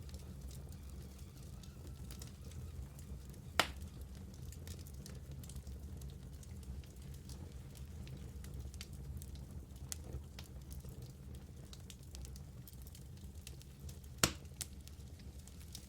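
Wood fire burning in a fireplace: a steady low rumble of flames with scattered small crackles, and two louder sharp pops, one about three and a half seconds in and one near the end.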